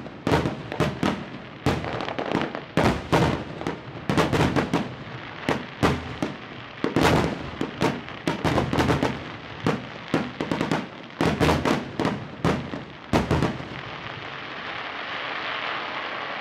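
Aerial fireworks shells bursting in a rapid, irregular barrage of loud bangs, several close together or overlapping. The bangs stop about three seconds before the end, leaving a steady hiss.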